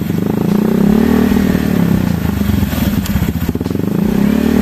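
Honda Vario 150 scooter's single-cylinder engine running through an aftermarket copy ('KW') muffler: idling, with a short throttle blip about a second in and another rise in revs near the end. The owner finds this muffler's sound unpleasant and suspects its glass-wool packing.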